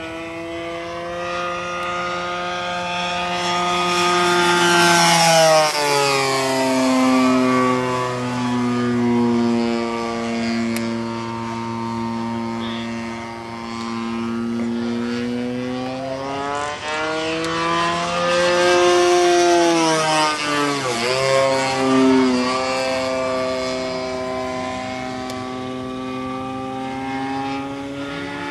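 Hangar 9 P-47 model plane's Evo 35 engine and propeller droning as it flies overhead. The pitch drops about five seconds in, climbs again around sixteen seconds, and falls once more a little past twenty seconds, as the plane passes.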